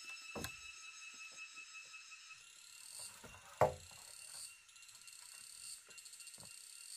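Forest insects calling in a steady high-pitched chorus, turning into a fast pulsing trill about two-thirds of the way through. A few knocks of wood being handled sound over it, the loudest a single thud about halfway.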